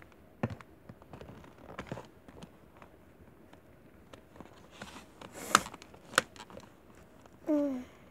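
Handling noise close to the microphone as a toy baby doll and its clothes are worked by hand: scattered clicks and taps with a brief rustle, the two sharpest clicks about a second apart past the middle. A short hummed vocal sound that falls in pitch comes near the end.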